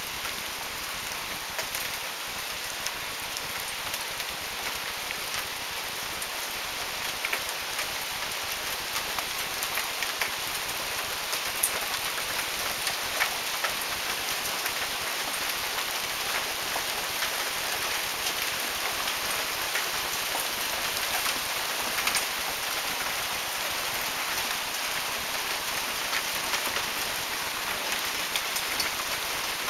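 Hail falling hard: hailstones pelting the lawn and the deck make a dense, steady hiss full of sharp ticks, with a few louder clicks now and then.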